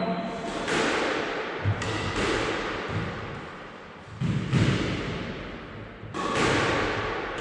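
Squash ball struck with a racket on the backhand and hitting the court walls, sharp hits every one to two seconds with a long echo.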